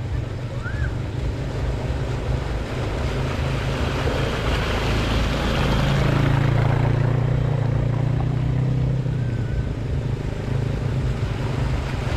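ATV engine running with a steady low hum and a noisy rush, getting louder about five seconds in and easing off again after about nine seconds.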